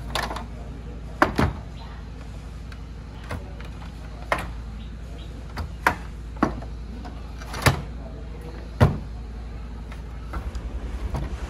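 A series of separate sharp knocks and clunks, about ten spread irregularly over the stretch, over a steady low hum; a faint low pulsing sets in near the end.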